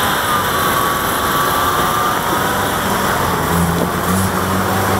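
Motor vehicle engine running under a steady hiss of rain and traffic; the engine hum grows louder about three and a half seconds in.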